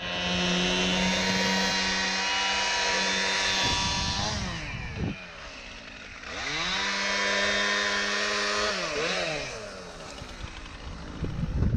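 Chainsaw engine held at full throttle, dropping to idle about four seconds in, revving back up and holding about two seconds later, then blipped a couple of times and let back down to idle near the end.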